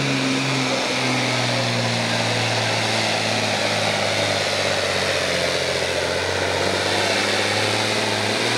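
A farm stock pulling tractor's diesel engine running flat out under heavy load as it drags a weight-transfer sled. Its pitch sags a little in the first second, then holds steady.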